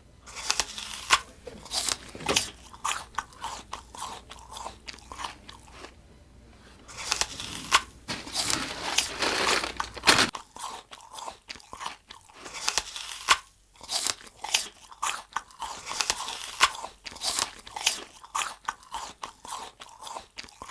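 Close, irregular crunching and crackling that goes on throughout, denser for a few seconds in the middle.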